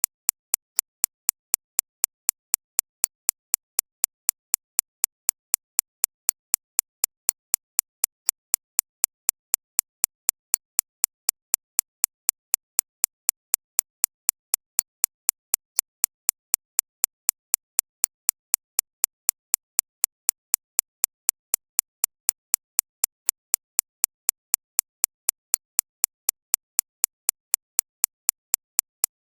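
Synthesised recreation of a shockwave therapy (ESWT) machine's impacts: sharp, evenly spaced pulses, a little over two a second, with a bright high-pitched crack that is strongest in the upper treble and quiet between strokes. Meant as a tinnitus-masking sound aimed at 6.5 to 13.5 kHz.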